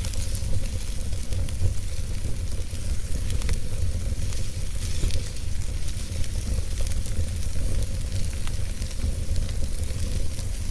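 Fire burning in a fireplace, crackling with many small scattered pops over a steady hiss and a low rumble of the flames.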